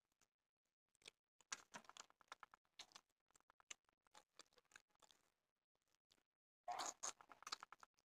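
Faint eating sounds of hand-eating rice and chicken: scattered soft wet clicks and smacks of chewing and of fingers working rice on plates, with a louder, denser run of smacks near the end.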